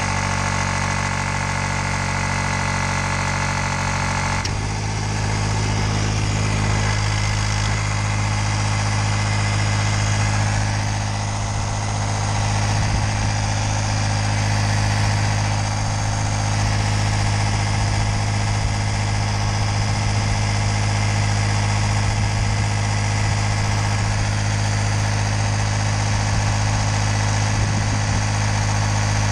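12-volt electric inflation pump running steadily as it pumps up an inflatable boat. Its motor hum shifts to a different, steadier tone about four and a half seconds in.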